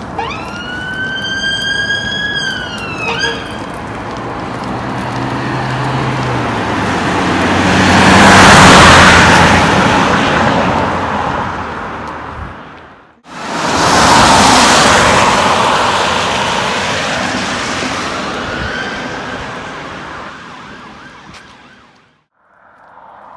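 Emergency vehicle siren: a wail that glides up in pitch, holds, then drops away about three seconds in. After it, the rushing engine and tyre noise of an emergency vehicle passing at speed swells to a peak and fades. It breaks off suddenly, then a second swell of passing noise rises and slowly dies away.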